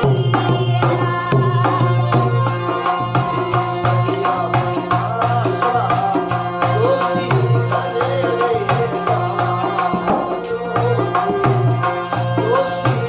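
Background music with a steady low drone and quick percussion.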